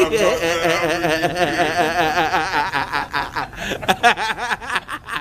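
A man's drawn-out, wavering vocal sound for the first few seconds, then men chuckling and laughing in short broken spurts.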